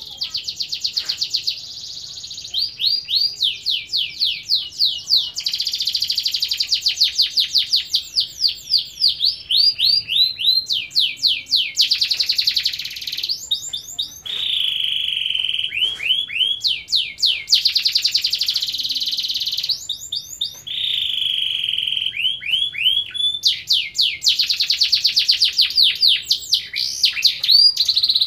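A domestic canary singing nonstop in a long rolling song: fast trills and runs of repeated sliding notes, phrase after phrase with only brief breaks.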